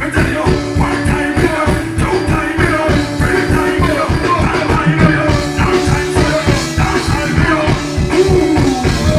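Reggae-ragga band music with a steady beat: drums, bassline, guitar and keyboard playing, without vocals.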